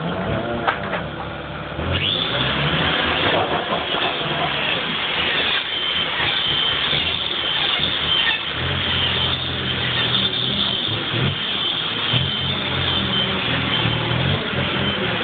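A motor running steadily, with a thin high whine from about two seconds in and a low hum that comes and goes.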